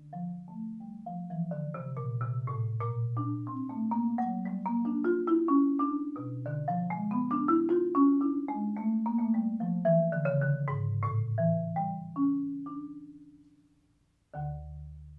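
Marimba played solo with mallets in a slow, flowing passage: struck melody notes over low bass notes that ring on. The phrase dies away about thirteen seconds in, and a new low chord is struck near the end.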